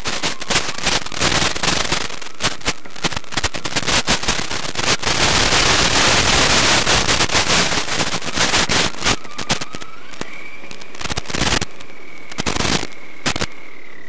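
Crackling static from the crawler's analog 5.8 GHz FPV audio link breaking up, drowning out the on-board sound for the first nine seconds or so and swelling to a full hiss midway. About ten seconds in, the steady high whine of the RC crawler's electric motor returns, rising in pitch, and three short bursts of static cut through it near the end.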